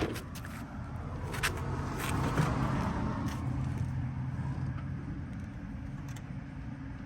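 A motor vehicle's low, steady rumble that swells and fades about two to three seconds in, like a car passing, with a few light clicks over it.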